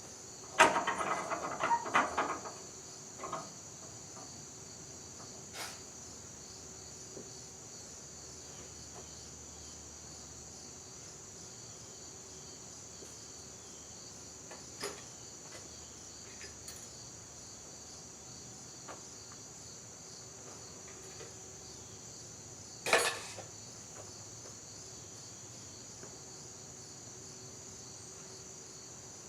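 Steady high chirring of crickets, with a short cluster of clanks and knocks in the first few seconds and a single sharp knock about 23 seconds in.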